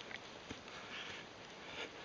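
A hiker's footsteps crunching on a dirt trail covered in dry leaves and pine needles, about one step a second, with a few light clicks.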